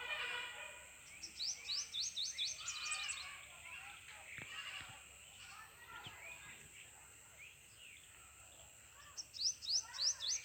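A songbird singing: fast runs of high, quickly rising notes, one about a second in and another near the end, with softer lower chirps between.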